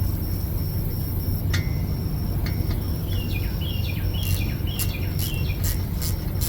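A small bird chirping: a run of short, high chirps, about two a second, starting about a second and a half in, over a steady low hum.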